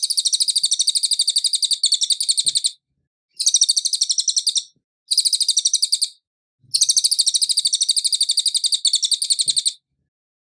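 Cililin singing in four bursts of rapid, evenly repeated high chirping notes. The first and last bursts run about three seconds each and the two in the middle are shorter, with brief pauses between them.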